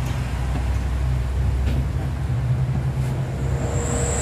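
Steady low mechanical hum and rumble, with a thin high-pitched whine that starts about three and a half seconds in and keeps going.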